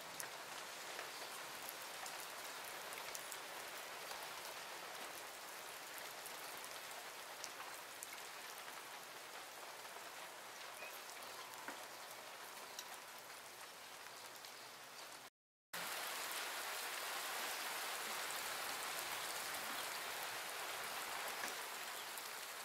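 Thunderstorm rain falling steadily, a fine patter of drops. A little past two-thirds through the sound drops out for a moment and comes back louder as the rain picks up.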